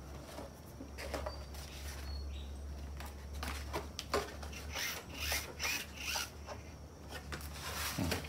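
Foam RC model airplane being handled: a run of short rubbing and scraping sounds as the foam parts are moved and pressed by hand, thickest in the second half.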